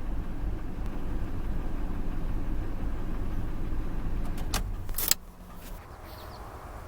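Ford 5.4-litre V8 engine running steadily, then stopping abruptly about five seconds in, with two sharp clicks just before and as it cuts out.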